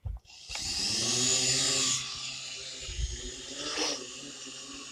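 Quadcopter drone's electric motors and propellers spinning up with a rising whine and hiss as it lifts off. The sound is loudest for about a second, then settles to a steadier, quieter hum as the drone climbs away.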